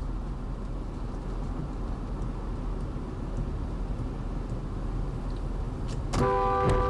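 Steady road noise of a moving car on a highway. Near the end a car horn sounds once, a steady two-tone honk lasting under a second.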